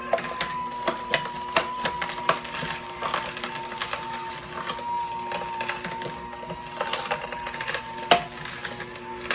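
AMZCHEF slow masticating juicer running: a steady motor whine with irregular cracking and snapping as its auger crushes carrot and apple. One sharp crack about 8 seconds in is the loudest.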